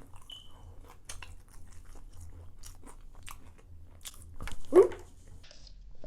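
Close-up chewing and crunching of crispy fried chicken tenders: many short, sharp crunches and wet mouth clicks. A brief hummed vocal sound comes about five seconds in.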